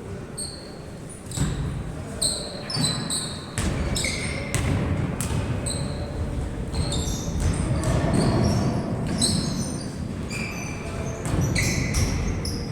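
Basketball game on an indoor court: the ball bouncing and dribbling, with sneakers squeaking repeatedly on the floor, echoing in a large hall.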